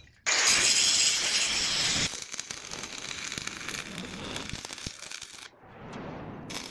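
Electric arc welding on steel: a steady crackling hiss from the arc, loudest for the first two seconds, then quieter, cutting off about five and a half seconds in.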